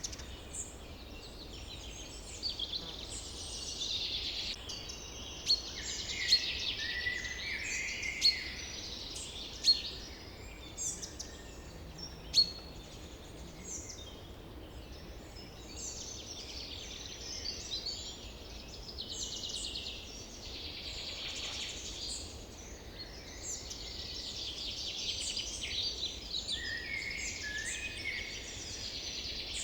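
Forest ambience of many birds calling and singing together in a dense, continuous chorus of chirps and trills, with a few sharp, louder short calls standing out in the first half.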